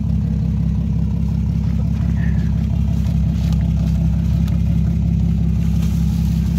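Off-road 4x4's engine running steadily close by, a low even drone with no revving.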